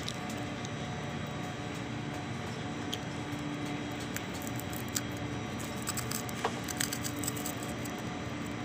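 Scattered small clicks and crunches of popcorn being eaten over a steady background hum.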